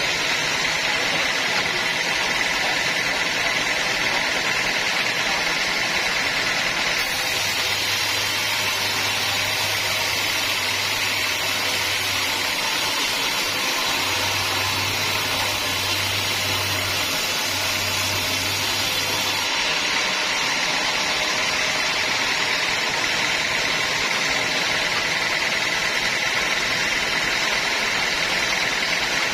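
Sawmill machinery running steadily: a continuous even mechanical noise with a faint steady high whine, and a low hum that comes in for a few seconds at a time in the middle.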